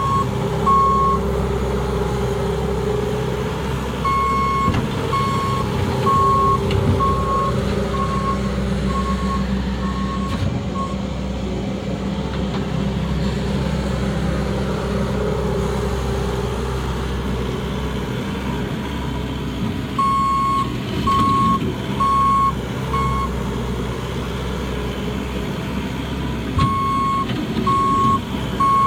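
Bobcat skid-steer loader's engine running steadily at work, with its reversing alarm beeping in three spells of single high beeps, about one and a half a second, as the machine backs up.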